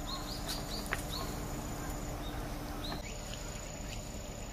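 Short, high chirps from small birds, repeated several times over the first three seconds, over a steady outdoor background hiss, with one faint click about a second in.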